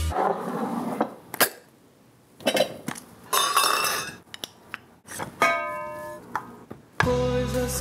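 Cocoa powder poured from measuring cups into a ceramic canister, a few soft hissing pours with small clicks, and a ringing clink of a measuring cup about five and a half seconds in. Music comes back in near the end.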